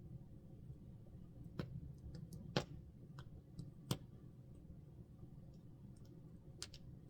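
A campfire crackling: a few sharp, irregular pops, two louder ones in the middle, over a low steady rumble.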